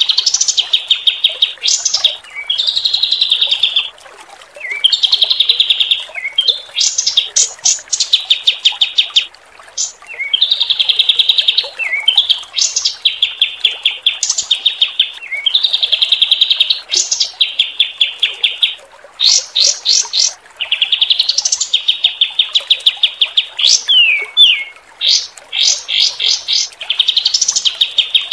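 Songbird singing loud, very fast trains of sharp repeated notes in bursts of a second or two with short gaps, some notes sweeping up high: the rapid 'tembakan' and 'roll tembak' song used to tutor caged competition birds. A faint hiss of flowing water runs underneath.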